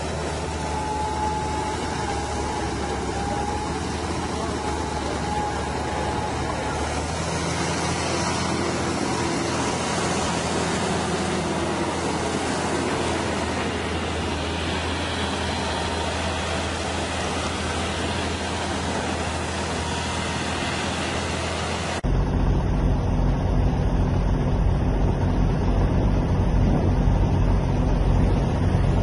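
Engines running steadily with a low hum. Near the end the sound cuts abruptly to a louder, deeper engine.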